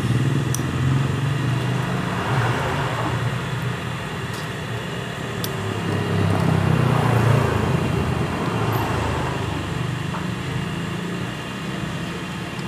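A vehicle engine running steadily, growing louder about six seconds in and easing off again, with a few light metallic clicks.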